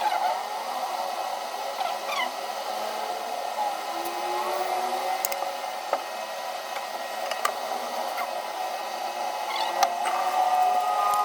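A steady electric whir like a small blower or hot-air tool, with a few faint clicks and taps over it.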